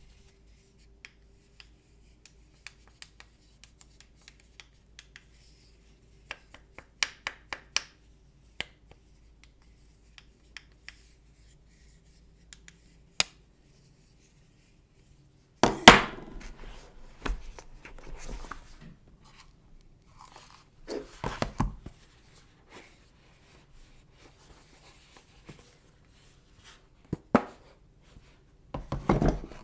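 Hands handling the Apple TV 4K's box and packaging: scattered light taps and clicks, then louder rustling and scraping of packaging from about halfway in, with further bursts near the end.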